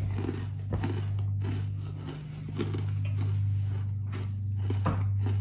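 Someone chewing a crunchy sandwich cookie, with faint crunches and a couple of short clicks, over a steady low electrical hum that is the loudest sound.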